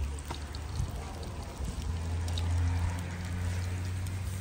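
Fish frying in a pan of hot oil: a steady sizzle with small scattered pops, over a low steady hum.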